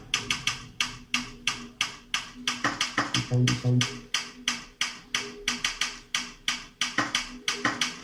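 Typewriter-style key clicks used as percussion in a music track: sharp taps at about five a second, somewhat uneven, over faint held tones, with two short deep bass notes a little past the middle.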